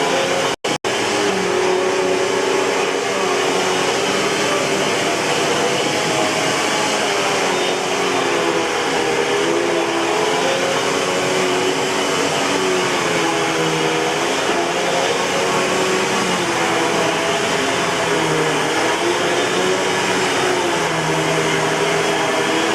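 Eureka Boss 6833B canister vacuum cleaner running steadily, its motor whine wavering slightly in pitch. The sound cuts out twice very briefly a little under a second in.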